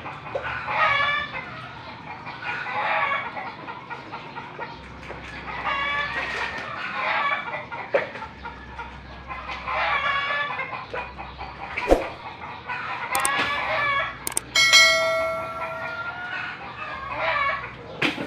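Chickens clucking in repeated short calls, with a rooster crowing once about three-quarters of the way through; a couple of sharp knocks sound in between.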